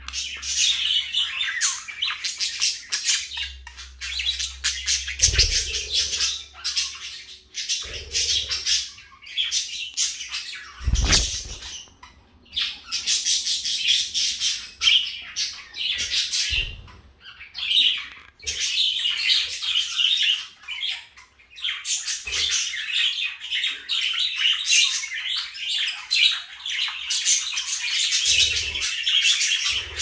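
Budgerigars warbling and chattering in a dense run of rapid chirps, clicks and squawks, with a few short pauses. A few dull thumps come through, the loudest about a third of the way in.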